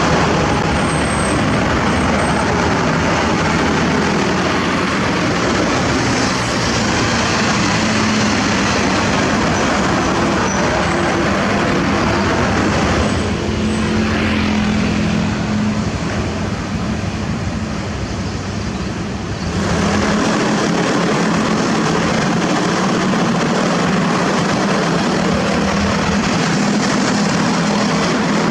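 Heavy truck's diesel engine running with a steady low hum and loud road-type noise. It drops in level for several seconds past the middle, then comes back up.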